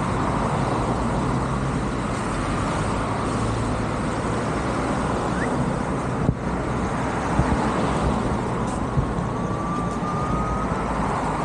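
Steady road traffic noise from cars driving past on a multi-lane road.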